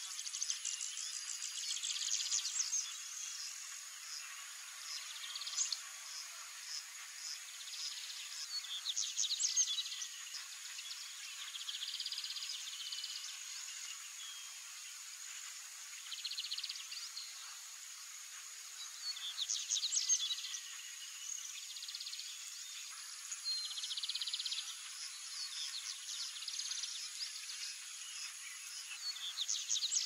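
A steady high-pitched insect drone, with short bursts of rapid high bird chirps and song phrases coming every few seconds.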